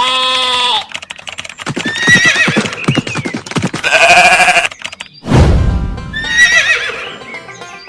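Several farm-animal calls, short pitched cries with strong overtones, mixed with rapid clattering and a brief low thud about five seconds in, over background music.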